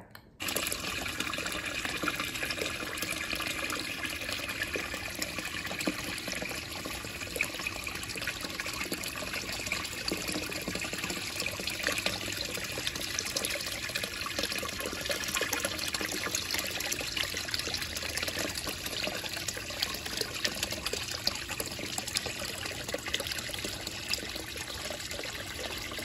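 Water falling steadily from a stone fountain into a pool, a continuous even rush with no break.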